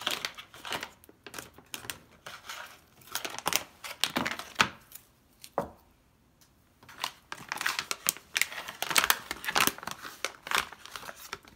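Crinkling of a foil-and-plastic retail pouch being handled, in clusters of crackles with a short lull about halfway through.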